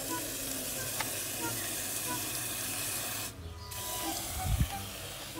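Water spraying from a garden hose spray nozzle into a metal trough of water around glass jars: a steady hiss that breaks off briefly a little past three seconds in, then starts again.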